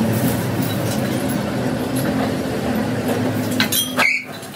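Metal lathe running with a steady motor hum as it turns a steel truck wheel disc, with metal clinking. Near the end a few sharp metallic clinks come together, then the running sound drops off suddenly.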